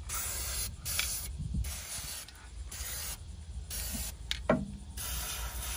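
Aerosol can of Fluid Film rust inhibitor sprayed through a thin extension straw in a series of short hissing bursts.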